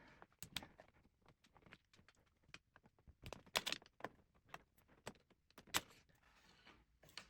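Faint, scattered small clicks and ticks of a screwdriver and small screws being handled while taking screws out of a cassette deck's chassis, with a few louder clicks about three and a half seconds in and near six seconds.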